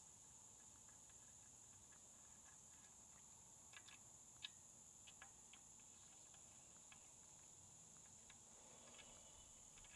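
Near silence with a faint, steady high insect drone, and a few light clicks around the middle from small bolts being threaded by hand into an aluminium block-off cover.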